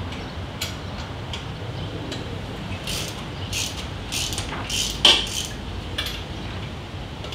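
Small hand ratchet clicking and metal tools clinking against screws as the two screws of a Harley-Davidson's chrome outer clutch side cover are backed out. Irregular short clicks, with the sharpest clink about five seconds in.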